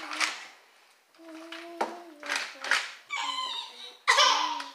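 Children's wordless vocalizing: short hums and whines, with a louder breathy exclamation near the end.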